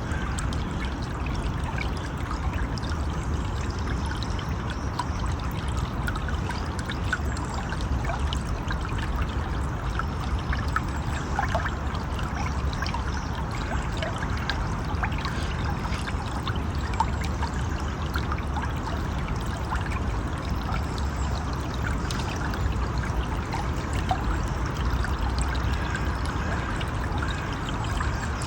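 River water flowing steadily, with many small trickles and splashes.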